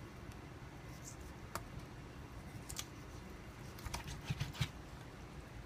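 Dull kitchen knife cutting through raw chicken at a joint, giving scattered soft clicks and crackles, with a quick cluster of them about four seconds in.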